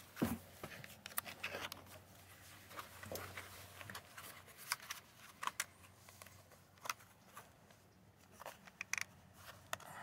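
Scattered light clicks and rubbing of a plastic seat belt guide being flexed and worked over the seat belt base by hand, with a short falling sound right at the start.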